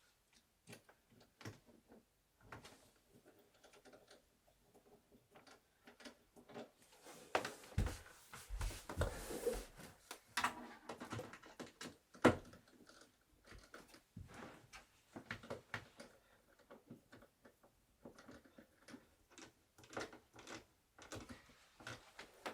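Wooden bed being assembled by hand: scattered knocks, clicks and light scraping of wooden parts, busier about eight to ten seconds in, with one sharp loud knock soon after.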